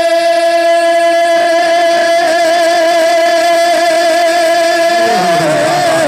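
A man's voice holding one long sung note of a devotional manqabat, steady in pitch, then wavering in melodic ornaments about five seconds in.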